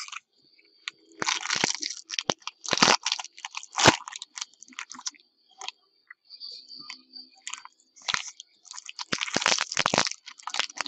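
Crinkling, crackling and tearing of trading-card packaging: foil pack wrappers and plastic being handled and ripped open, in irregular clusters of sharp crackles with a short lull in the middle.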